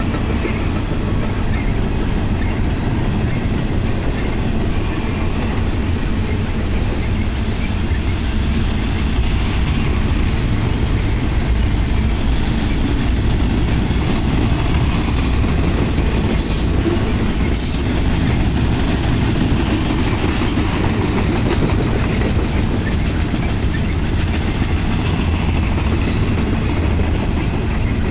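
BNSF intermodal freight train's container well cars rolling past at a steady pace: a continuous rumble and rattle of steel wheels on the rails.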